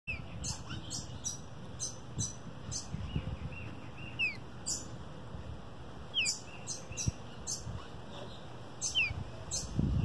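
A young songbird calling with short, high chirps, each falling in pitch. They come in uneven runs of two or three a second, with short pauses between runs.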